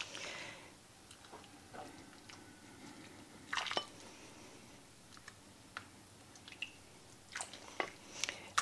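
A ladle scooping chicken soup from a pot and pouring it into a bowl: soft liquid splashes and dribbles with a few light clinks of the ladle. The loudest clink comes about three and a half seconds in, with a few more near the end.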